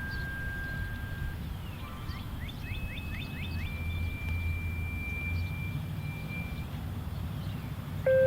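Radio activation tones for an outdoor warning siren. A steady beep ends about a second in; after a pause a one-second higher tone comes, followed by a slightly lower tone held for about three seconds, with quick rising chirps around them. Near the end a louder, lower tone starts.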